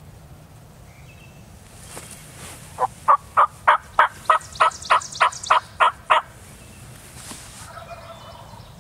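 A run of about a dozen loud turkey yelps, evenly spaced at roughly three a second, starting about three seconds in and lasting some three seconds.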